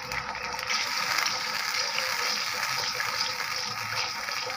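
Red chili-tomato sauce sizzling and bubbling in a wok as a wooden spatula stirs it, a steady crackling hiss.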